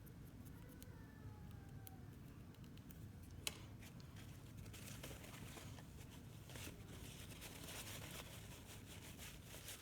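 Faint scraping and rubbing as small metal divider parts are cleaned by hand with a wooden skewer and paper towel, with scattered small clicks and one sharper click about three and a half seconds in.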